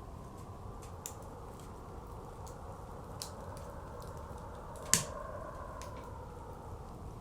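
Wood fire crackling with scattered sharp pops, one much louder pop about five seconds in, over the steady rushing howl of blizzard wind.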